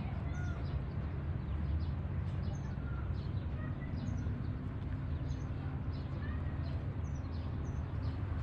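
Steady low outdoor rumble, with short high chirps of small birds scattered through it.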